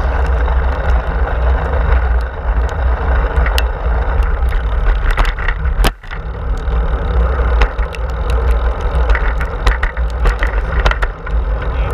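Steady rumbling wind buffeting and tyre noise picked up by a handlebar-mounted action camera on a moving bicycle, with scattered small clicks and rattles. The sound drops out briefly about six seconds in.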